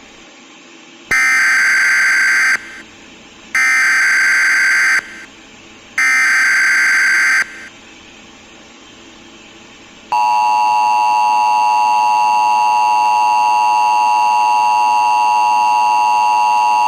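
Emergency Alert System alert tones: three loud bursts of warbling digital header data, each about a second and a half long with a short gap between, then a few seconds later the steady two-tone EAS attention signal, which starts about ten seconds in and holds.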